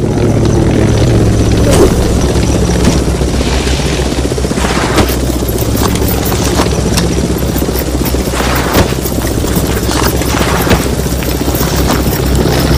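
Loud helicopter rotor thrum running steadily, with irregular gunshots and bangs from a firefight cracking over it every second or so.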